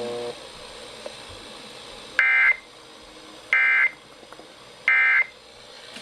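Emergency Alert System end-of-message (EOM) data bursts: three short, identical bursts of two-tone digital signal about 1.3 seconds apart, marking the end of the monthly test alert.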